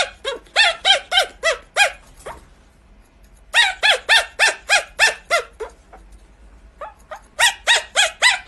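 Pomeranian puppy yapping: rapid high-pitched yips, about five a second, in runs of eight to ten with short pauses between.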